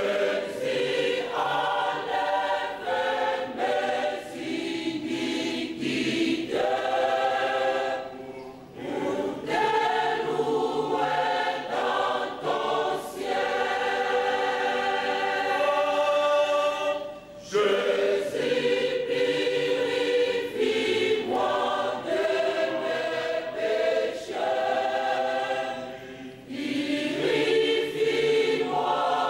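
Large church choir singing a hymn in long, sustained phrases, with short breaks between phrases about every eight to nine seconds.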